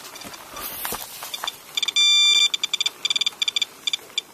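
Radiation counter's speaker beeping fast and irregularly, with one held tone about two seconds in and then a rapid scatter of short beeps: a high count rate from the rainwater at a roof downspout.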